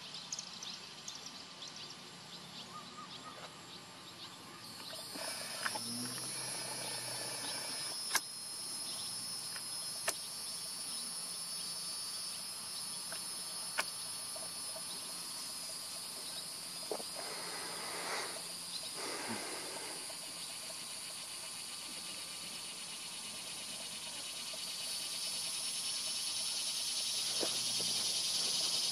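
Steady high-pitched insect chorus that starts about five seconds in and grows louder near the end, with a few sharp clicks along the way.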